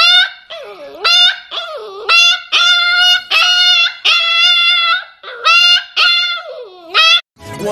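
Husky puppy howling in a string of about ten short, high yowls, some dipping in pitch and climbing back up. The howls stop near the end and music begins.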